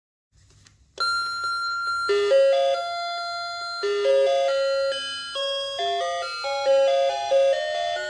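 A 16-inch animated Santa figure playing its built-in electronic tune: a chime-like melody of single held notes that starts about a second in. A faint low hum sets in just before it.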